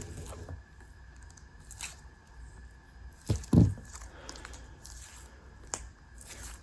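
Hands squeezing and handling a squishy toy, a Dream Drop dupe: soft scattered squishing and crackling sounds, louder about three and a half seconds in, with a sharp click near the end.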